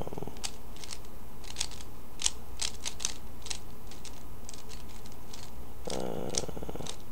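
A Rubik's cube being turned by hand, its layers making quick, irregular plastic clicks in short flurries. A brief low hum is heard about six seconds in.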